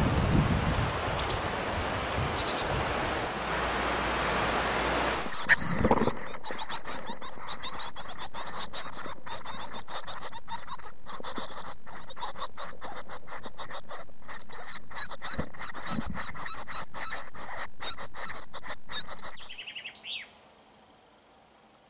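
Great tit nestlings begging inside the nest box: a dense, high-pitched chorus of rapid chirping that starts suddenly about five seconds in and cuts off abruptly near the end, the chicks' response to a parent arriving with food. Before it, background hiss with a few short high bird chirps.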